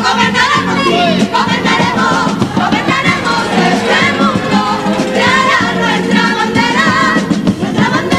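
Carnival comparsa choir of men's and women's voices singing together in harmony, accompanied by Spanish guitars and a bass drum and snare (bombo and caja) keeping a steady beat.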